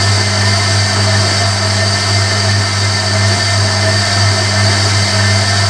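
Hoover Electronic A3172 front-loading washing machine running, its motor giving a steady low hum with a high whine over it and no let-up.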